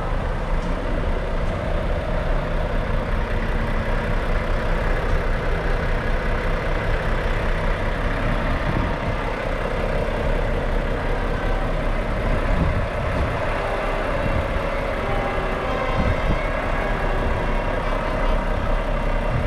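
Large diesel truck engine idling steadily.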